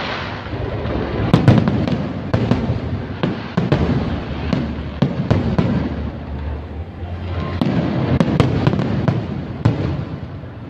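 Fireworks display going off: a dense, irregular run of sharp bangs and cracks over a continuous low rumble.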